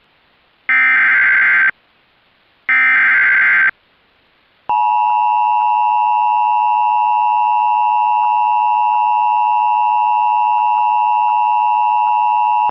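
Emergency Alert System tones on a TV broadcast. First come two one-second bursts of warbling SAME header data, about a second apart. Then, just under five seconds in, the steady two-tone EAS attention signal (853 and 960 Hz) begins, announcing a flash flood warning.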